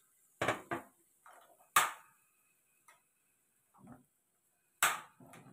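A cooking spatula knocking against a pan while stir-frying: about five sharp, separate knocks with gaps between them, loudest about two seconds in and near the end.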